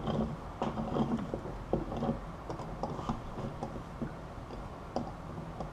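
Irregular light clicks and taps of hand soldering work on a stained-glass piece: soldering iron, solder and tools touching the foiled glass and metal border, over a low steady hum.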